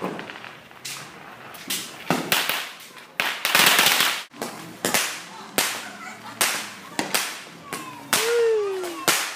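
Firecrackers and fireworks going off in quick succession: sharp cracks about once a second, with a loud hissing burst near the middle and a falling whistle near the end.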